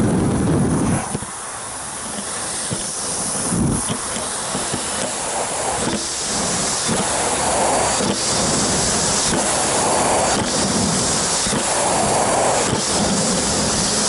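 Miele S6000-series canister vacuum running steadily with a loud rushing hiss of suction, swelling every two seconds or so as the floor head is worked back and forth.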